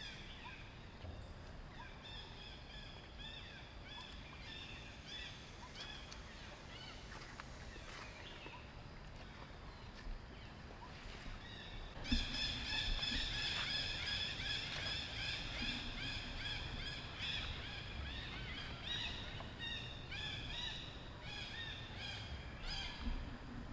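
Monkeys giving many short, high-pitched cries in quick succession, growing louder and more crowded about halfway through.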